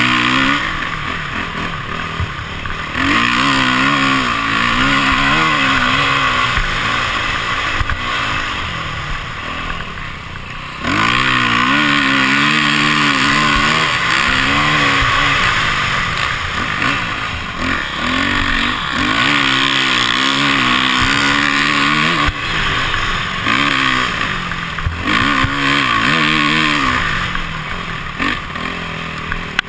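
Dirt bike engine revving up and down as the rider works the throttle through the turns and straights, heard from the onboard camera. The revs drop about ten seconds in, then pick up hard again a second later.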